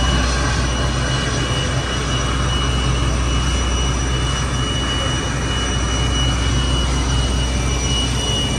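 Steady ramp noise under a parked Boeing 747: the auxiliary power unit and air-conditioning packs running, a constant rushing with a low hum and a steady high whine.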